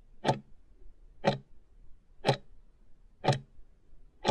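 Countdown timer sound effect: a sharp clock-like tick once a second, about five in all, marking off the last seconds of the countdown.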